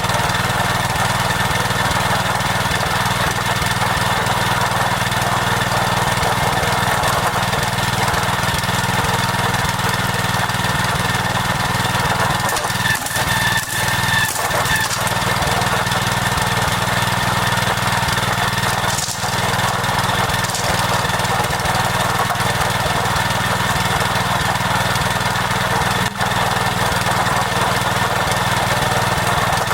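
A small engine running steadily at a constant speed, with a few brief dips in level about halfway through and again later on.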